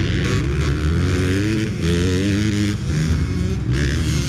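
Motocross bike engine revving up and down as it is ridden over a muddy track, heard from on board.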